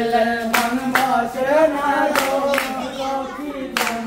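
A group singing a Sylheti dhamail folk song together, keeping time with sharp hand claps about every half second. The clapping pauses for a moment in the second half while the singing goes on.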